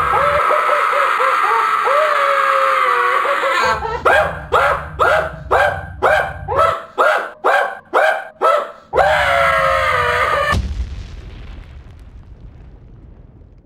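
Two people screaming in panic, the screams breaking into a rhythmic stutter of about two pulses a second for several seconds, then a single boom about ten seconds in that dies away.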